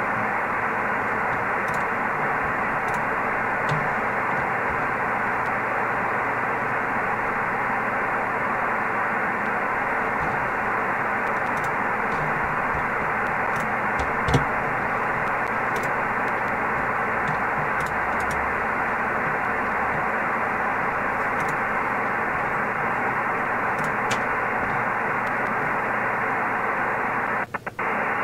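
Steady hiss and static from a Yaesu HF transceiver's receiver on an empty frequency, limited to the narrow voice-width passband. A few faint clicks and a soft knock about halfway sit on top, and the hiss briefly cuts out twice near the end.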